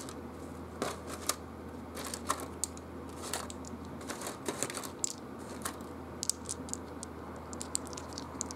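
Small round game pieces clicking against each other and against the box tray, mixed with the rustle of cloth drawstring pouches as hands sort through a boxed board game; irregular clicks over a steady background hiss.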